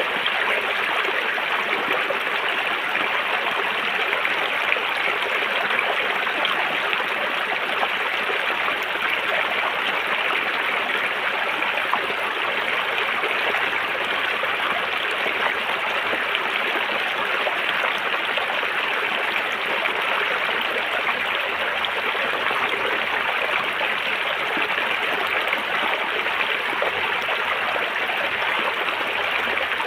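River water flowing over rocks with a steady, even rushing and gurgling.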